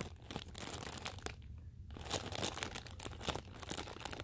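A homemade paper squishy in a clear plastic bag being squeezed by hand, crinkling and crackling irregularly, with a brief pause a little over a second in.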